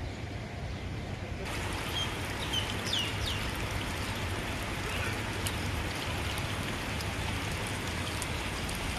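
Water trickling along a shallow garden water channel, a steady hiss that comes in about a second and a half in. A few short bird chirps sound two to three seconds in, over a low steady rumble.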